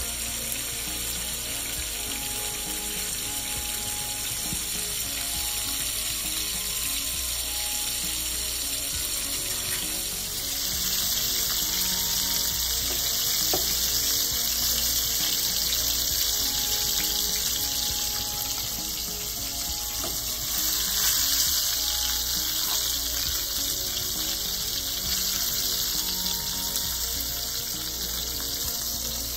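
Red snapper pieces frying in hot oil in a nonstick pan: a steady sizzle.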